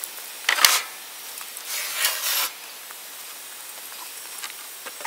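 The wooden hard shell of a homemade rooftop tent being lifted off its trailer base and tipped onto its side: a sharp knock with a short rustle about half a second in, then a scraping rustle at about two seconds.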